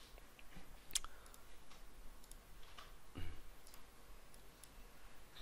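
A few faint clicks of a computer mouse, the sharpest about a second in.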